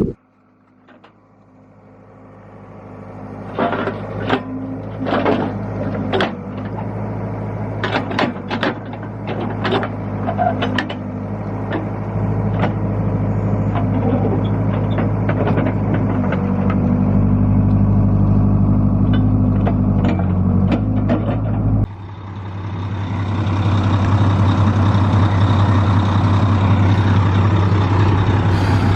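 Diesel engine of heavy equipment running steadily, growing louder over the first few seconds, with scattered metallic clanks and knocks in the first half. The engine's note changes abruptly about two-thirds of the way through, as if the load or throttle shifts.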